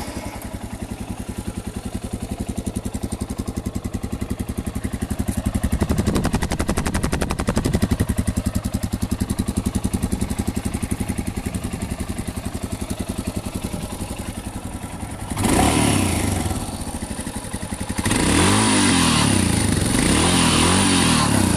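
Royal Enfield Himalayan 411's single-cylinder engine through its stock exhaust, idling with an even, steady beat just after starting. About fifteen seconds in it is revved, then revved again repeatedly near the end, the pitch rising and falling with each blip.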